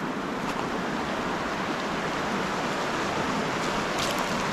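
Shallow river rushing over rocks: a steady wash of running water.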